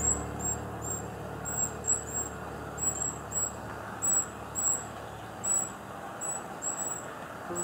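Short, high chip notes from a hummingbird, repeated about once or twice a second, over a steady hum of distant traffic.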